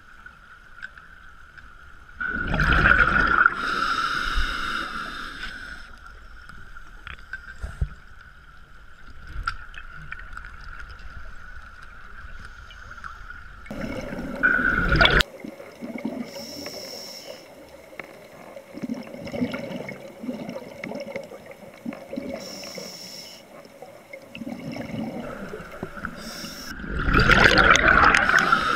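Scuba diver's exhaled bubbles rushing and gurgling out of a regulator, heard underwater, three times: a couple of seconds in, midway, and near the end. A faint steady hum runs underneath.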